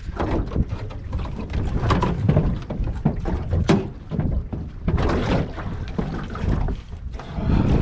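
Wind buffeting the microphone and water slapping against a small skiff's hull, with irregular knocks and rustles from movement in the boat.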